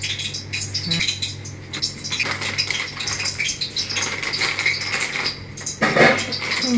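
Oil heating in a steel wok on a gas stove, sizzling and crackling with many small pops, over a steady low hum. A voice comes in near the end.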